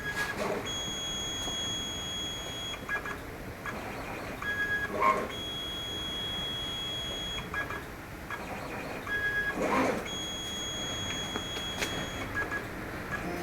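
CNC plasma table's gantry stepper motors whining in three stretches of about two seconds each as the torch traces the cut path in a dry test run, with no arc firing. Short lower blips and a few clicks come between the moves, over a steady background hiss.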